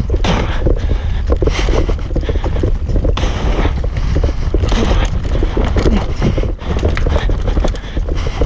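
Mountain bike, a Norco Range, descending a dirt and root singletrack at speed: a dense, irregular clatter of tyre, chain and frame knocks as it rattles over roots and ruts, over a constant low wind rumble on the bike-mounted action camera's microphone.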